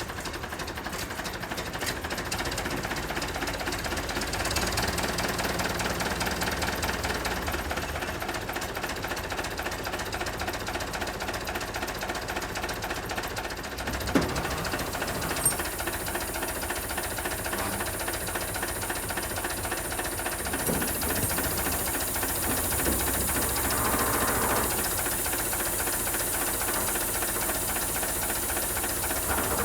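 Volvo LM225 backloader's diesel engine running steadily just after starting. There are two sharp clicks about halfway through, and a high hiss joins in about two-thirds of the way through.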